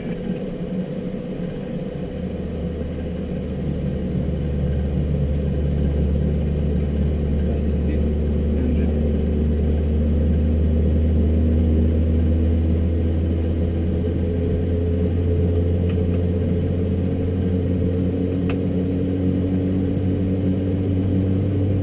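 Saab 340's General Electric CT7 turboprop engine starting. A low hum comes in about two seconds in and grows louder, and higher tones slowly rise in pitch as the engine and propeller spin up.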